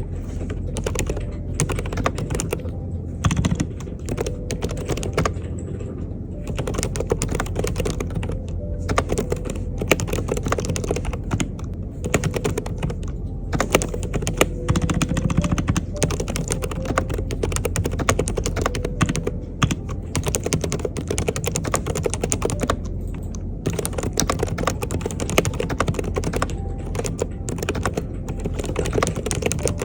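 Typing on an Mstone keyboard fitted with low-noise Coral switches (45 g): a steady stream of quick keystroke clicks with a few brief pauses.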